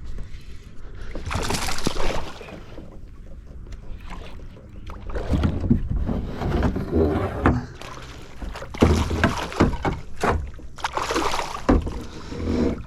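Irregular sloshing, splashing and knocking in a small boat, in uneven surges, while a hooked smallmouth bass is fought toward the boat.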